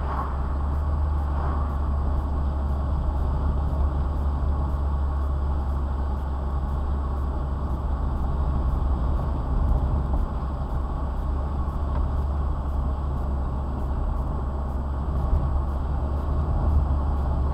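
Steady engine and tyre noise of a car driving at an even speed, heard from inside the cabin as a low drone.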